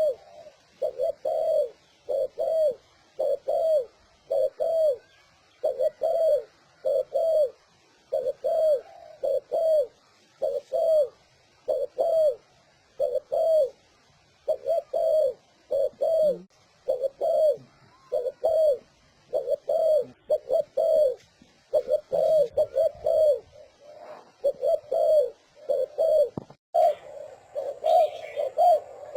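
Spotted dove cooing in the fast "speed" style: short coos in quick groups of two or three, repeated over and over. Near the end the coos run together and overlap.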